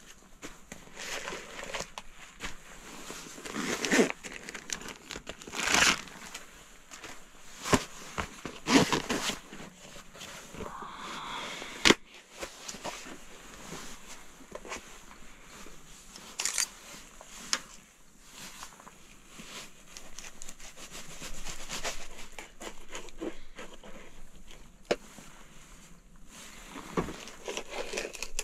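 Intermittent handling sounds of filleting a small perch with a knife on a plastic cutting board: scraping and cutting, rustling, and scattered knocks, with one sharp tap about twelve seconds in.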